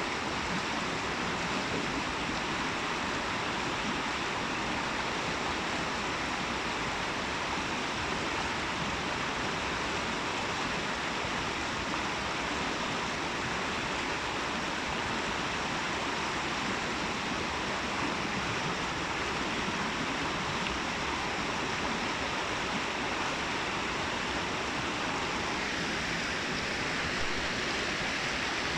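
Water cascading through a babbling brook: a steady, even rush of running water.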